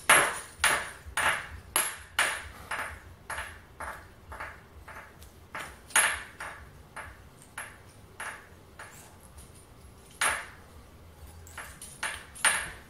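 Light metallic ticks from fly-tying tools at the vise. They come at about two a second and grow fainter, with a few louder clicks later on.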